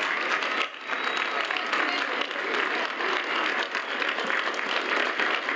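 Large crowd applauding: dense, steady clapping that dips briefly just under a second in.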